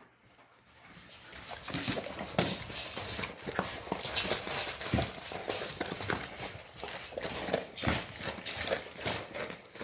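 Labrador retriever eating dry kibble and toasted bread: irregular crunching and chewing clicks that start about a second in and go on steadily.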